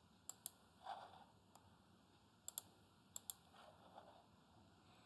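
Computer mouse clicking: a few sharp clicks, mostly in pairs, against near silence.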